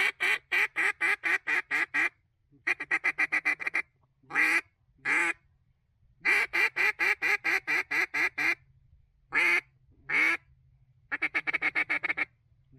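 Duck quacking in runs: strings of rapid, evenly spaced quacks alternating with single, longer quacks, with short silences between the runs.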